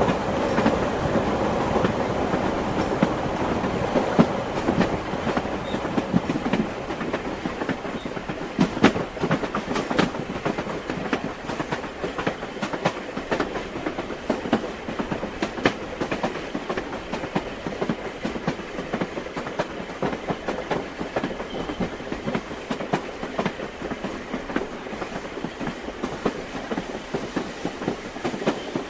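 Train wheels clattering over the rail joints: a steady rolling rumble full of quick, sharp clicks, easing a little after about six seconds.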